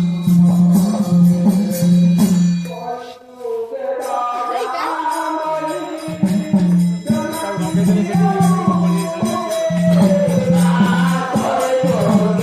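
Background music: a singing voice over a pulsing low bass beat. The bass drops out for a few seconds about three seconds in, then comes back.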